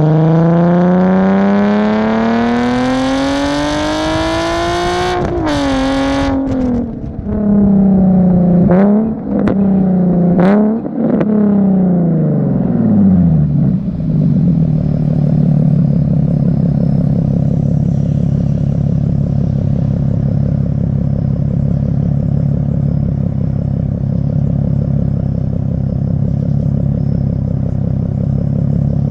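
Nissan 370Z's 3.7-litre V6 through a Tomei Expreme Ti titanium exhaust. It accelerates with a steadily rising note for about five seconds, then drops off sharply. Two quick revs up and down follow, the revs fall away, and from about halfway through it settles into a steady low drone.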